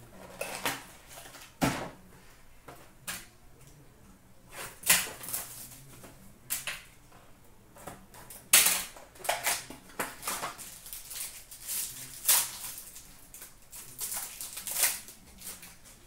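Hockey card packs and cards being handled and opened by hand: irregular clicks, taps and short crinkling rustles, a few sharper than the rest.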